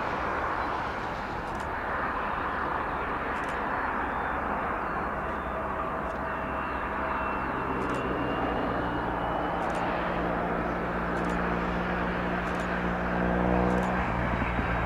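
Jet engine noise of a twin-engine Boeing 757-200F freighter coming in to land, a steady rush. From about halfway in, a lower steady hum joins it and grows louder.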